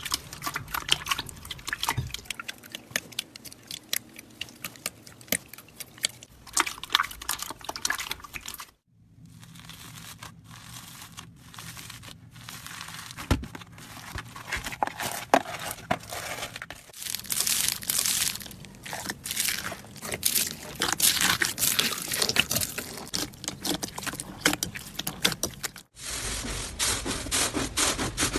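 Slime being squished and stretched by hand, with dense crackling and popping clicks. The sound cuts abruptly three times as one handling clip gives way to the next.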